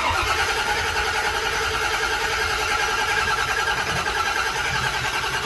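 Starter motor cranking the freshly rebuilt V8 of a 1992 Porsche 928 GTS, a steady, even churning that begins the instant the key is turned. The engine turns over but does not fire on its first start.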